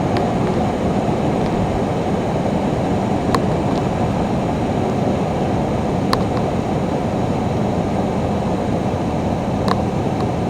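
Steady low roar of road traffic, with three sharp clicks spaced about three seconds apart.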